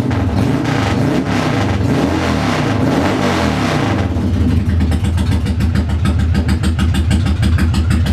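Freshly rebuilt motorcycle engine running. It is revved a few times in the first four seconds, its pitch rising and falling, then settles to a steady idle.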